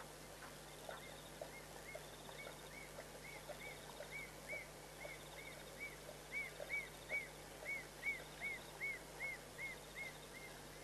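A night animal's repeated whistled call: short rising-and-falling notes, about two to three a second, growing louder toward the end. Under it, faint soft ticks of a lioness lapping water.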